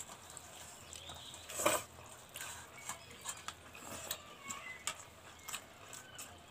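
Quiet eating by hand: chewing, lip smacks and light clicks of fingers on plates, with one louder breathy, slurping noise about 1.7 s in.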